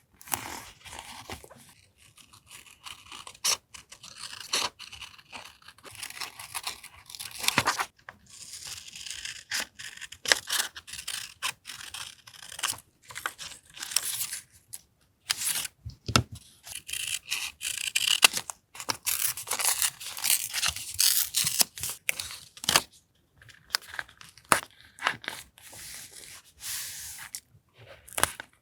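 Close-up paper sounds of collage journaling: paper and stickers rustling and being torn, with many small taps and clicks as pieces are handled and pressed down. A deeper knock about 16 seconds in.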